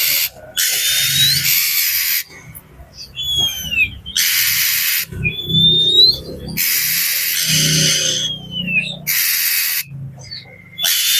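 Oriental magpie-robin (kacer) in agitated voice: about five harsh rasping calls, each lasting up to about a second and a half, alternating with short clear whistles that slide down or up in pitch.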